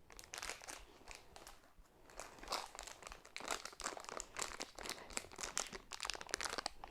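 Plastic toy packaging being handled and crinkled: a dense run of crackles and crunches, sparse at first and busier from about two seconds in.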